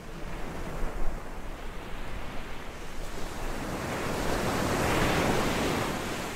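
Ocean waves washing on a shore: a steady surf hiss in which one wave swells to a peak about five seconds in and then recedes.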